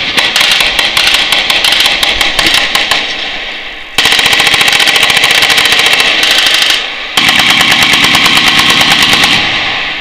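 Fully automatic machine-gun fire. For the first three seconds several guns fire overlapping, uneven bursts. Then come two long continuous bursts of about two and a half seconds each, with a short pause between them.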